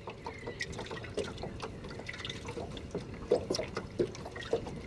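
Water splashing and dripping at the side of a boat as a rubber landing net is dipped into it: many small irregular splashes, two louder ones a little over three and four seconds in.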